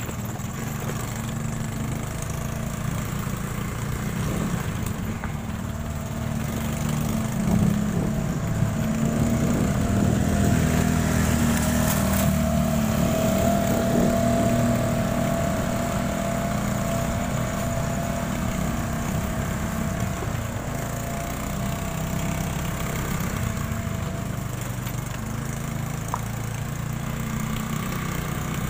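Motorcycle engine running steadily while riding, with road and wind noise. It grows louder for a stretch in the middle.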